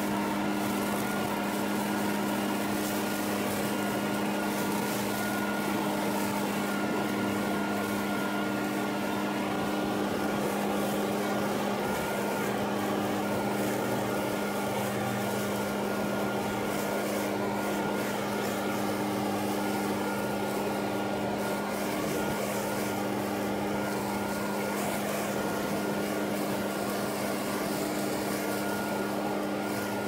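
Gas-powered leaf blower running at a steady throttle, its engine humming evenly under the rush of air as it blows dry leaves across grass.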